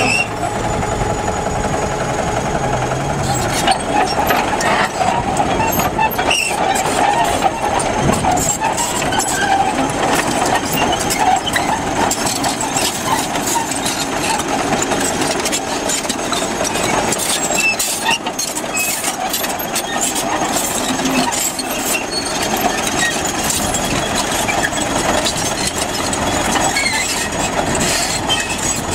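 Crawler bulldozer moving over crushed rock: its diesel engine running steadily while the steel tracks clank and rattle over the stones in a dense, continuous clatter.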